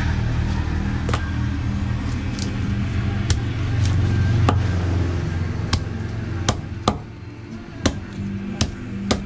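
Knife chopping through fish onto a wooden chopping block: a series of sharp knocks, about nine in all, coming more often in the second half. Under them is the low rumble of a passing vehicle, which fades out about seven seconds in.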